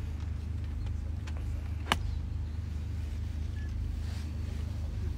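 A golf club strikes a ball once, a single sharp click about two seconds in, over a steady low rumble.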